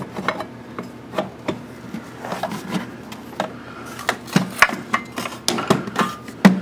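Metal hand tools and brake parts knocking and clinking, with some rubbing, as a motorcycle's rear brake caliper and pads are worked on. The knocks are irregular and come faster in the second half, with the loudest, briefly ringing knock near the end.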